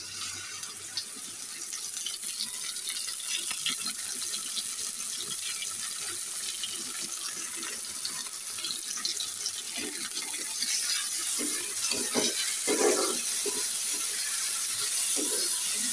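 Dried small shrimp frying in hot oil with onions and green chillies in a karahi: a steady sizzling hiss full of small crackles that swells just after the shrimp go in. A metal spatula scrapes and clacks against the pan as it is stirred, more strongly in the last few seconds.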